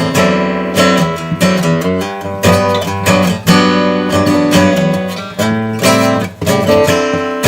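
Gibson Hummingbird acoustic guitar being strummed, chords ringing out with a fresh attack about every half second to a second.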